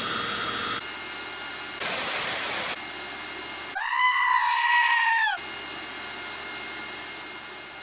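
An AntMiner S9 Bitcoin miner's cooling fans run with a steady whir. This is cut with a Hoover WindTunnel upright vacuum cleaner running for under a second, then a burst of loud hiss-like noise for about a second. Then comes a sheep's long, loud bleat, the loudest sound, about four seconds in. After the bleat the miner's fan noise continues alone.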